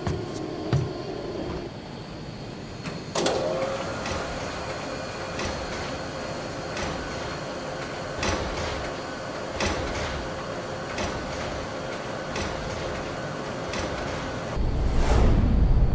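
Mechanical sound effects for an aircraft cargo bay. A steady machine hum runs with a click about every second and a half. Near the end it gives way to a louder rush of air and a low rumble as a pod drops from the aircraft.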